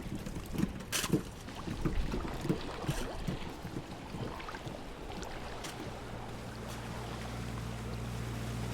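Water lapping and small knocks against a boat, then a boat motor's steady low hum comes in about six seconds in and slowly grows louder.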